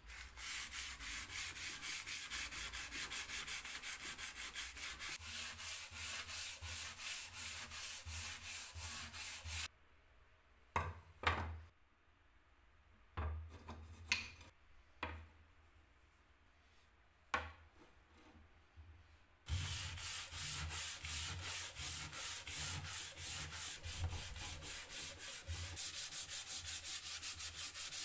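Old wooden suitcase boards being hand-sanded with sandpaper: quick, even back-and-forth rubbing strokes. The sanding stops for about ten seconds in the middle, where only a few knocks are heard, then starts again.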